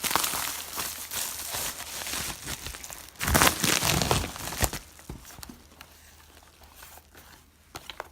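Packaging being torn open and crinkled by hand as a parcel is unwrapped: dense rustling and tearing, loudest for a second or so about three seconds in, then dying down to a few faint handling clicks.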